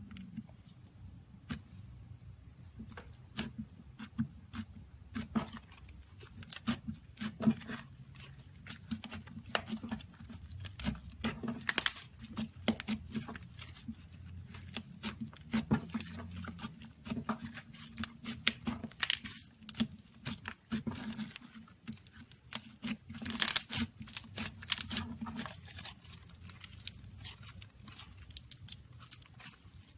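Slime with clay mixed in, kneaded and squished by hand: irregular sticky clicks and crackles, over a low steady hum.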